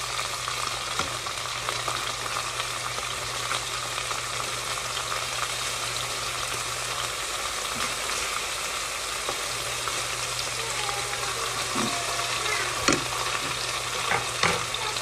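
Chicken pieces frying in olive oil in a pan, a steady sizzle over a low hum. A few sharp knocks near the end.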